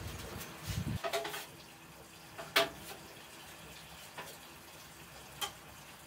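Light clicks and knocks of plastic and copper tubing being handled and fitted, with a few in quick succession after about a second and one sharper click about two and a half seconds in.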